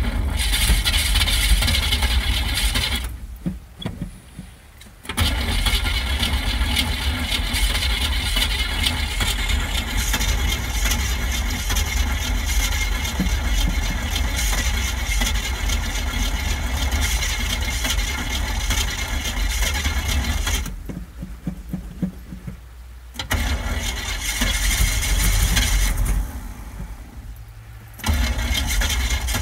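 Cold start of a 1975 Chevy K20's big-block V8 with long-tube headers, fed by a new carburetor with no choke. Just after catching, the engine runs unevenly: it drops away about 3, 21 and 26 seconds in and picks back up each time, as it struggles to stay running cold.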